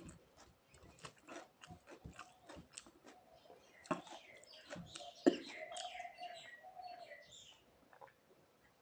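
Close-miked chewing of a rice meal: irregular wet mouth clicks and smacks, with two louder smacks about four and five seconds in. A few short pitched sounds waver in the second half.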